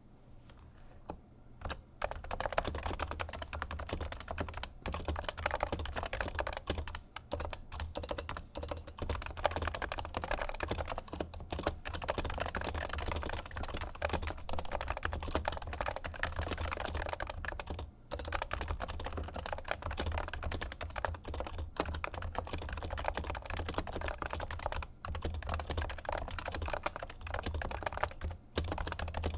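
Continuous fast typing on a Topre Realforce keyboard with silenced 55g Topre electrostatic capacitive rubber-dome switches, starting about two seconds in, with a few brief pauses.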